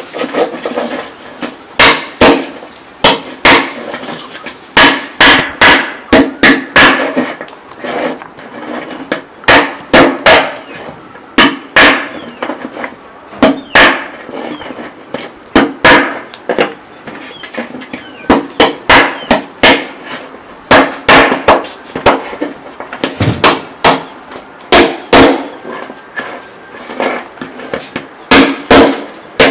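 Crabs being cut up with a knife: repeated sharp chops, often two or three in quick succession, at irregular intervals.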